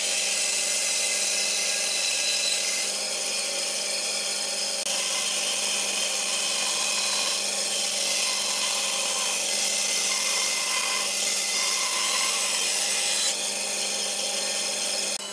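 Band saw running with a steady motor hum while its blade rips through a softwood board, a continuous sawing hiss. About thirteen seconds in, the board clears the blade and the saw runs on unloaded.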